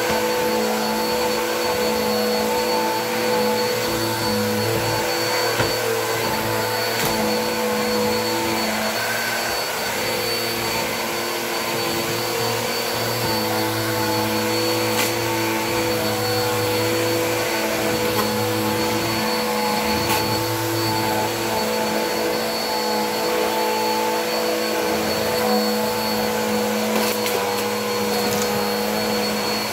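Bissell vacuum cleaner running steadily, a continuous motor hum with a high whine, its low end rising and falling, and a few faint ticks.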